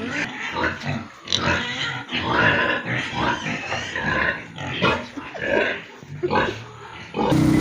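Pigs grunting and squealing in a string of irregular calls. Near the end it cuts abruptly to a vehicle engine running steadily.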